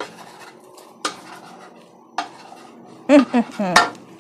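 Wooden spatula knocking and scraping in a wok, three sharp knocks about a second apart. Near the end, a short, loud pitched vocal sound.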